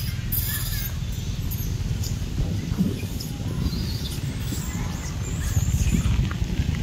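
A motorbike engine's low, pulsing rumble, growing louder near the end as it approaches, with scattered short high squeaks from a troop of long-tailed macaques.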